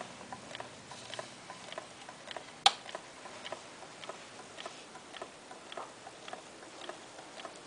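Homemade balloon-piston Stirling engine running, its wire connecting rods and crank clicking about three times a second, with one louder click a little under three seconds in.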